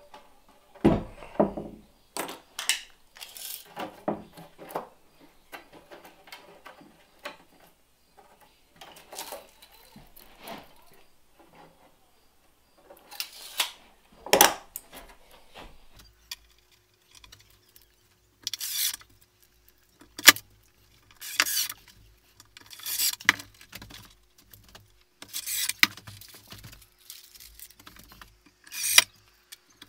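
Intermittent workshop clatter of small metal hardware and tools being handled against a wooden bench and pine crate. In the second half come several short bursts of a cordless drill driving small screws into the crate's pine side.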